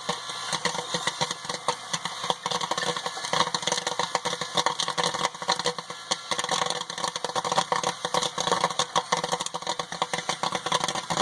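Popcorn popping in the heated kettle of a Paragon Cineplex popcorn machine: rapid, irregular pops that come many to the second, over a steady machine hum.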